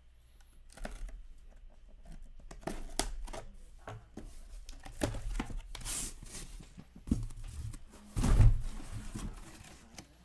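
A cardboard shipping case being opened by hand and the card boxes inside slid out and stacked: rustling, scraping cardboard and small knocks, with the loudest dull thud about eight seconds in as boxes are set down.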